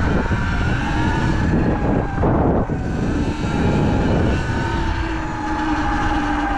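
Sur-Ron Light Bee X electric dirt bike's motor whining steadily while riding, a few held tones over a heavy low rumble, with a louder noisy swell about two seconds in.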